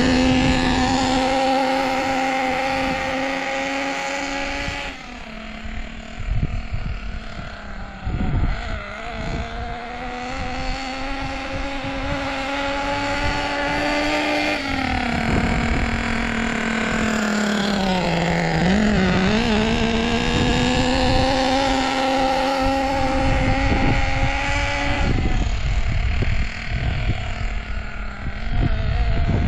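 O.S. nitro two-stroke glow engine in an RC buggy, running in its break-in at part throttle and buzzing at a fairly steady pitch. The engine goes quieter from about five seconds in to about ten seconds in. About eighteen seconds in, the revs drop sharply and then climb back up.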